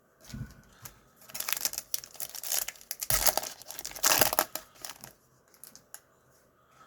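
Foil trading-card pack wrapper being torn open and crinkled in the hands, in several crackling bursts over a few seconds, then fading to light handling.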